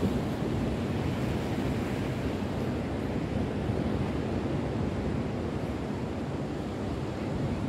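Ocean surf washing on a sandy beach, a steady, even rush of waves with no breaks, and wind on the microphone.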